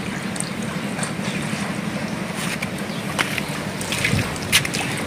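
Floodwater of a swollen river flowing, a steady noise with a few short clicks, the sharpest about four and a half seconds in.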